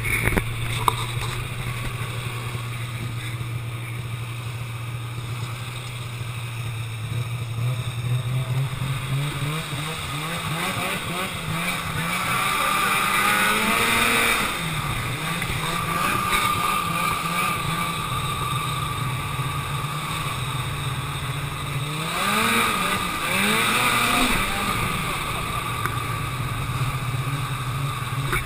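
Ski-Doo snowmobile engine running at a steady pitch, then revving up with a rising whine as the sled speeds across the ice about eight seconds in, easing off, and revving up again a little past twenty seconds in.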